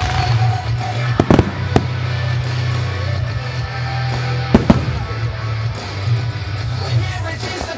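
Fireworks shells bursting over loud music: a cluster of three bangs just after a second in, and a quick pair at about four and a half seconds.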